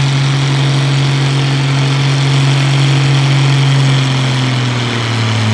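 Allis-Chalmers farm tractor's engine running at a steady, held speed while pulling a weight-transfer sled slowly, kept below the class's 8 mph limit. About four seconds in, the engine speed drops slightly.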